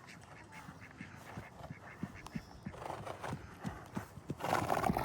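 A horse's hooves thudding on the ground in quick, irregular steps, with a louder rushing burst near the end.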